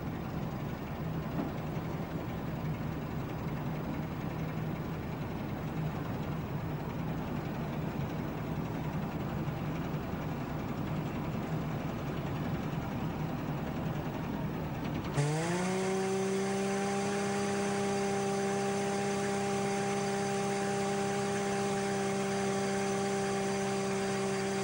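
Lifeboat engine running steadily, just after being started. About 15 seconds in it cuts abruptly to a different, louder steady hum of several held tones that begins with a brief rising pitch.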